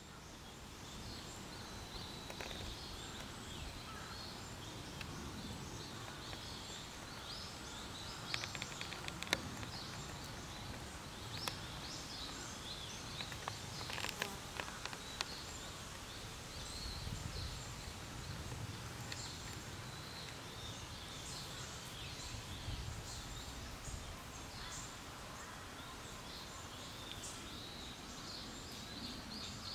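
Woodland ambience with frequent short, high chirping calls. A few brief creaks and clicks about nine and fourteen seconds in come from the handheld camcorder's body as it is twisted in the hand.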